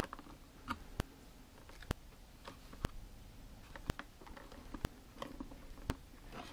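Small wire cutters snipping the ties that hold an action figure in its cardboard box, with soft plastic and cardboard handling noises. A sharp, steady tick sounds about once a second.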